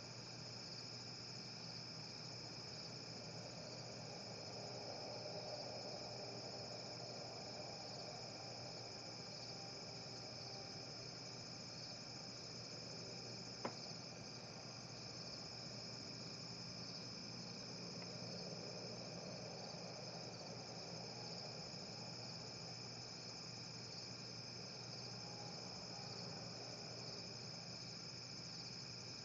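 Crickets trilling steadily in a night chorus. A faint lower drone swells up and fades twice, and there is a single sharp click about halfway through.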